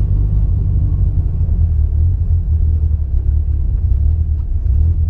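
Holden Gemini on the move, a steady low rumble of engine and road noise.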